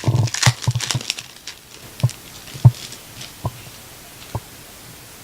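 Trading cards being handled: a quick run of rustles and taps in the first second and a half, then four single sharp taps spaced just under a second apart as the cards are set down one by one.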